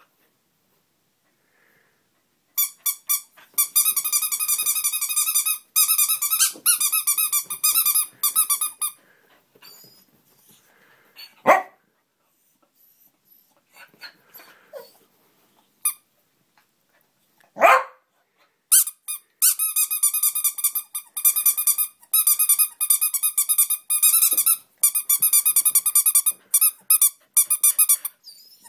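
Small rubber duck squeaky toy squeezed over and over in quick runs, a high piping squeak with a fast pulsing rhythm. It stops for several seconds in the middle, where there are only two short, sharp sounds.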